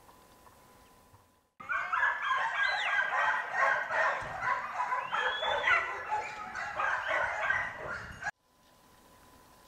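A pack of hunting dogs (a rehala) barking and baying together, with many voices overlapping and yelping. The sound starts abruptly about a second and a half in and cuts off suddenly near the end.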